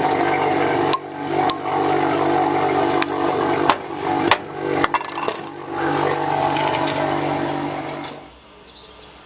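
A small motor-driven pump running with a steady hum, under scattered metallic clicks and knocks from a metal drier-core tin being handled and opened. The hum stops abruptly about eight seconds in.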